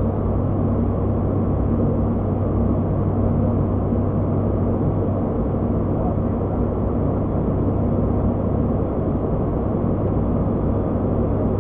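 Cockpit noise of an ATR 72-600 in flight: its Pratt & Whitney PW127 turboprop engines, propellers and airflow making a steady drone with a constant low hum.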